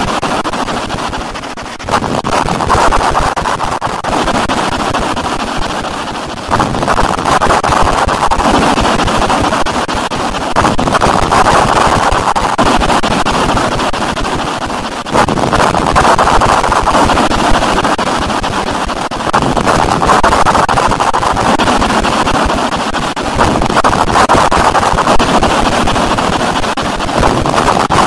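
Harsh noise music: a dense wall of distorted noise, strongest in the middle range, surging up abruptly about every four seconds and slowly sagging between surges.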